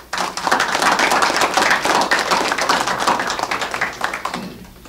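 Audience applauding, many people clapping at once, dying away about four seconds in.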